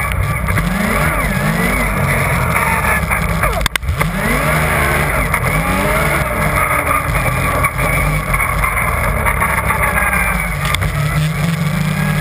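Yamaha Nytro RTX SE snowmobile's three-cylinder four-stroke engine and track running at speed, engine pitch rising and falling again and again with the throttle. There is a brief break in the sound a little under four seconds in.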